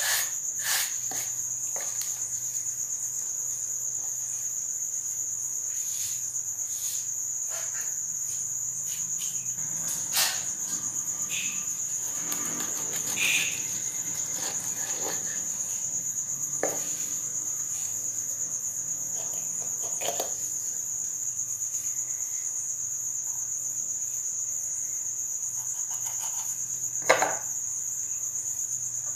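Crickets chirping in a steady high trill throughout. Scattered knocks and scrapes of a knife on a wooden cutting board as a snakehead fish is cut, the sharpest knock near the end.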